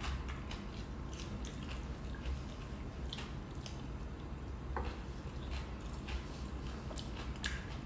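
Two people eating soup and salad with spoons and forks: chewing and mouth sounds, with scattered light clicks of cutlery against ceramic bowls, over a low steady hum.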